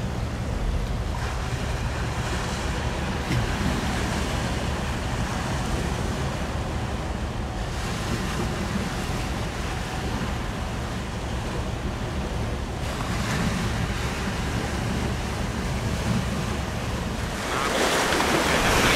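Wind blowing on the microphone over the wash of choppy river waves, a steady rushing noise that gets louder and brighter near the end.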